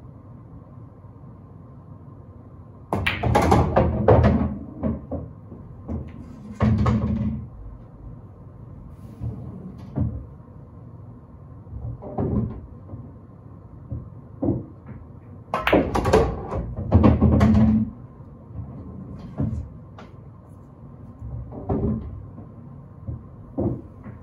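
Pool balls being played: sharp clicks of cue tip on ball and ball on ball, and longer thudding rumbles of pocketed balls dropping and rolling in the table, several times.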